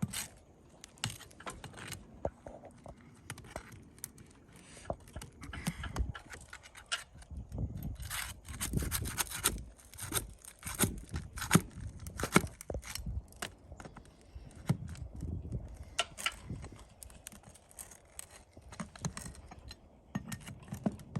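Irregular scraping, clicking and knocking as roof shingles are lifted and nails are worked out of them by hand.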